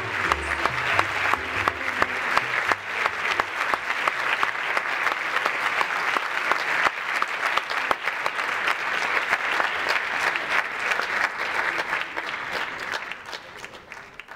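Theatre audience applauding, dense and steady, with the last notes of the music dying away just as it starts; the applause fades down near the end.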